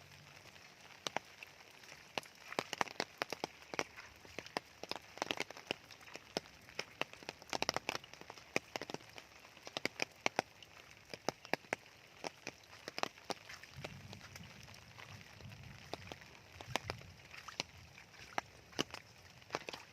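Raindrops falling on a surface: many irregular individual drip ticks, some louder than others, over a soft steady hiss of rain.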